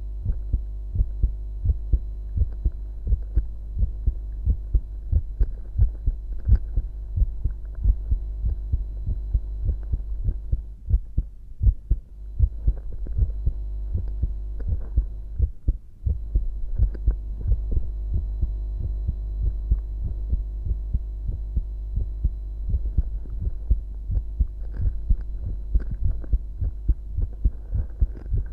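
A man's heartbeat, strong and regular, each beat a close pair of thuds, over a constant low hum.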